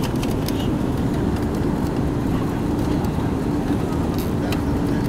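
Steady cabin noise inside an Airbus A340-600 on approach: the rush of airflow and the drone of its four Rolls-Royce Trent 500 engines, with a steady hum and a few light clicks.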